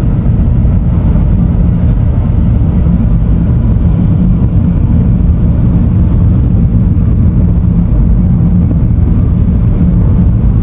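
Loud, steady low rumble of a car driving: road and tyre noise with engine drone.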